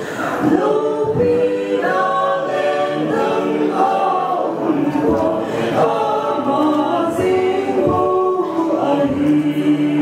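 Mixed vocal quartet of two men and two women singing a cappella in close harmony, with no instruments. A long chord is held from about nine seconds in.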